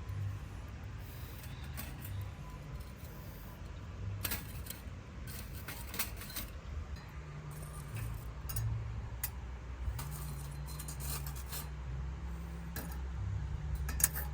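Irregular light clinks and rattles of small hard objects being handled, over a low steady hum.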